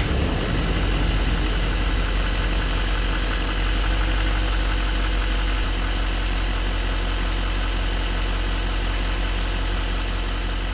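Diesel truck engine running at a steady idle just after starting, a deep rumble with the mechanical clatter of the engine audible over it. The recording has its low and high frequencies boosted by EQ.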